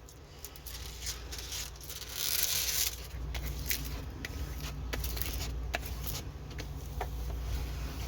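Rustling and small clicks of a diamond painting kit's plastic packaging being handled, with a brief louder rustle about two seconds in, over a steady low hum.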